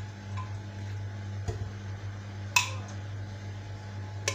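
A few sharp clicks and knocks of kitchenware being handled, about a second apart and loudest about two and a half seconds in, over a steady low hum.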